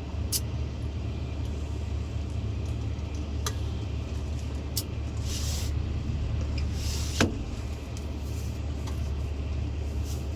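Excavator's diesel engine running steadily at a low drone, with scattered clicks, two short hisses, and a sharp knock about seven seconds in.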